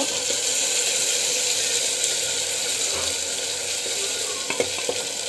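Ground masala paste sizzling steadily as it fries in hot oil in a metal pot while being stirred with a spatula, with a few light knocks near the end. The paste is at the sautéing stage, being cooked down until its raw colour changes.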